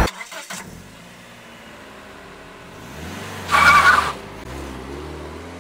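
A car engine running low, then a brief screech of tyres about half way through, followed by the engine revving up, its pitch rising near the end.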